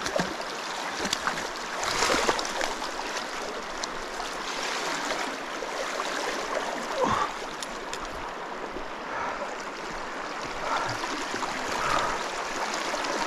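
Fast river current rushing steadily, with splashes from a hooked sea trout thrashing at the surface as it is drawn in and scooped into a landing net, loudest about two seconds in and again around seven seconds.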